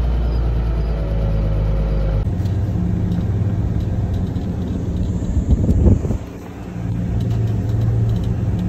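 Farm truck engine running as the truck is driven, a steady low drone. The sound changes abruptly a little over two seconds in, with a few knocks and a brief drop in loudness around six seconds in.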